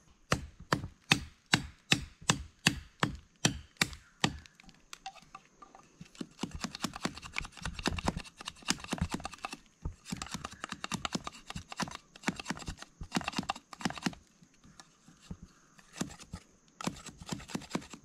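A knife blade chopping and shaving a freshly cut wooden fork as it is whittled into a slingshot frame. It opens with a quick run of sharp chops, about four a second, for the first four seconds or so. Clusters of rougher shaving and scraping strokes follow, thinning out near the end.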